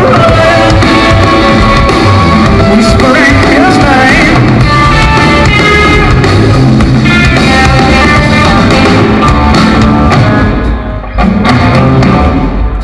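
Live rock band playing loud, with electric guitars and drums and guitar notes bending in pitch. The sound dips briefly about eleven seconds in.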